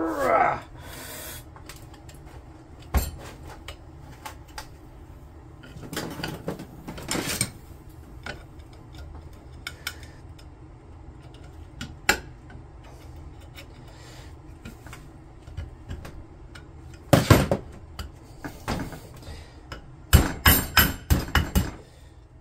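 Metal-on-metal clicks and knocks of hand tools and a coil spring against the aluminium 4L60E pump body as a stiff pressure regulator spring is worked into its bore. The clicks are scattered, with a loud knock about 17 seconds in and a quick run of taps a few seconds later.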